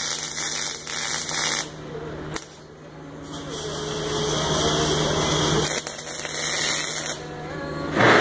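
MIG welding arc crackling on a steel bracket, then cutting off abruptly about a second and a half in. A steady hum carries on underneath, and a loud burst comes near the end.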